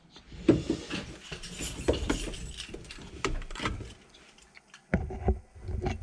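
Handling noise against an air handler's sheet-metal cabinet: irregular knocks, clicks and rustling, with a few heavier thumps about five seconds in.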